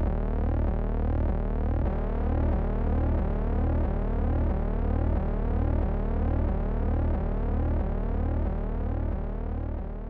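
Electronic background soundtrack: layered synthesized tones gliding in pitch over and over above a low, evenly pulsing hum, fading out near the end.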